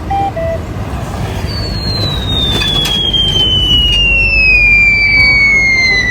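A long, steady falling whistle, the cartoon falling-bomb sound effect, glides slowly down for about five seconds over a low rumble of heavy vehicle engines. A short two-note beep sounds at the start.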